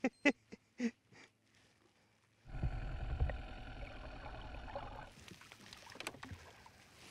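About five sharp clicks as a line-counter baitcasting reel is handled. Then, heard through the water, a low rumble with a steady hum from the boat's motor, which cuts off suddenly about five seconds in.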